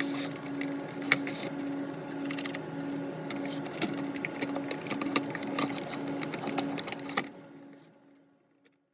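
Irregular sharp plastic clicks from the phone's housing parts being handled and fitted together, over a steady mechanical hum that pulses two or three times a second. The sound fades out about seven seconds in.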